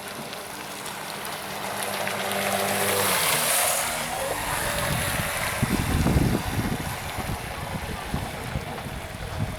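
RC speedboat's brushless electric motor and hull spray, a hiss that swells as the boat passes close about three seconds in and then fades away. Wind buffets the microphone from about four seconds on.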